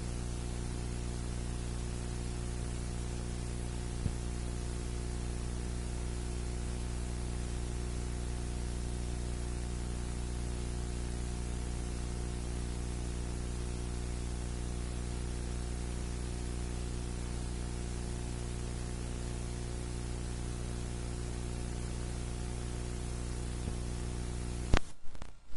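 Steady hiss with a low, many-toned electrical hum underneath, the playback noise of an old videotape transfer with no speech or music. A faint click about four seconds in, and a few sharp crackles near the end as the noise cuts off.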